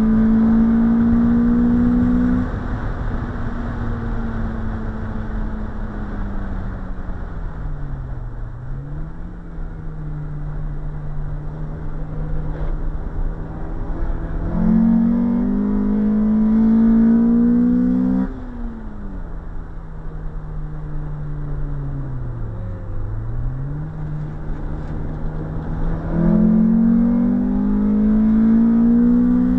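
Honda CR-X SiR's 1.6-litre VTEC four-cylinder heard from inside the cabin on track: three spells of full-throttle acceleration with the engine note climbing, each cut off suddenly as the throttle lifts. Between them the engine runs steadier and quieter at a lower pitch, with the revs dipping and recovering twice, over a hiss of wind and tyre noise.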